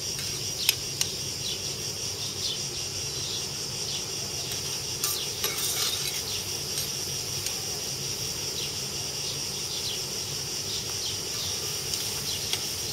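Metal spoon stirring and clicking against a steel sauté pan of olive oil, with a light sizzle, over a steady high drone of cicadas.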